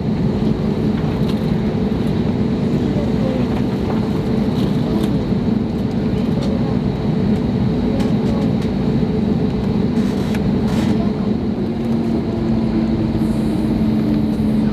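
Airbus A321neo cabin noise with the jet engines running: a steady low rumble and hum with a couple of held tones, one drifting slightly in pitch near the end.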